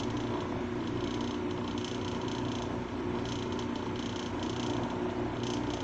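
Lapidary trim saw running with a steady hum. Short hissy sounds come and go over it, each lasting under half a second.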